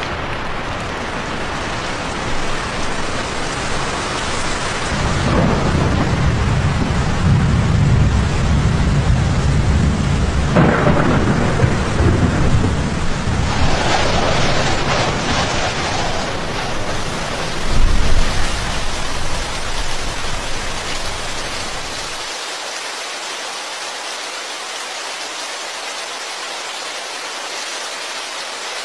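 Steady rain with long rolls of thunder through the first half and a louder rumble a little past the middle. Later only the hiss of the rain remains.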